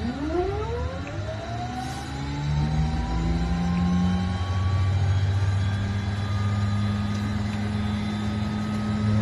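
Pratt & Whitney Canada PT6A-20 turboprop starting: a rising whine as the gas generator spools up over the first few seconds. From about halfway the engine settles into a steady hum as it reaches idle with the propeller turning.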